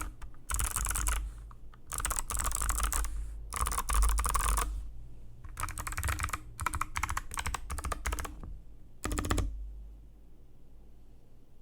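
Mechanical keyboard with Kailh Box White V2 clicky switches, typed in quick runs of crisp keystrokes broken by short pauses. A heavier burst of keystrokes comes about nine seconds in, then the typing stops.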